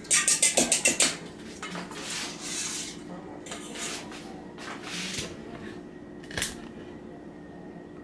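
Eggs being beaten in a bowl for an egg wash: a quick run of utensil clinks against the bowl for about a second, then scattered clinks and knocks of kitchenware, with one sharper knock about six seconds in.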